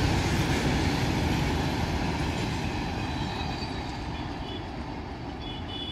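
A train running on the track, its heavy rumble steadily fading as it moves away.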